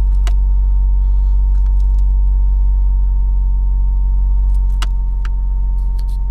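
Toyota Celica GT-Four ST205's turbocharged 3S-GTE four-cylinder idling steadily, with a thin, steady high whine over it: the electric-sounding noise the owner hears start each time the throttle is blipped. A few light clicks come through, one near the start and several in the second half.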